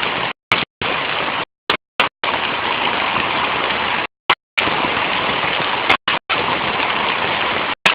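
Heavy rain and hail pouring down in a steady, dense hiss, recorded on a mobile phone. The sound cuts out abruptly to silence several times, in short gaps.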